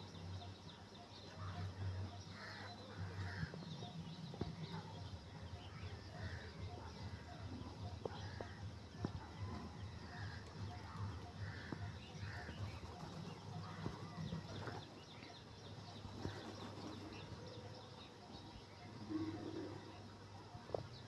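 Flock of rock pigeons feeding on a concrete rooftop: many scattered pecking taps and short bird calls over a steady low hum that fades about two-thirds of the way through.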